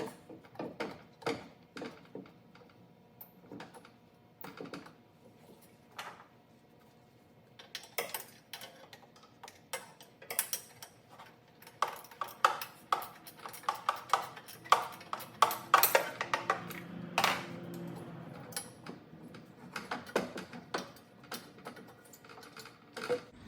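Hand tools working on the skid steer's manifold-to-turbo flange bolts as they are backed out: sharp metal clicks and clinks, scattered at first and then in quick runs of clicking about halfway through.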